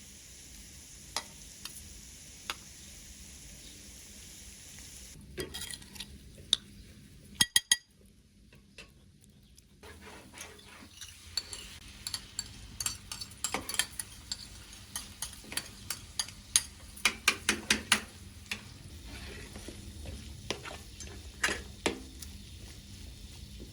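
Food sizzling in a frying pan while a utensil stirs it, clinking and scraping against the pan. There are a few sharp knocks about seven seconds in, and frequent clinks from about ten seconds on.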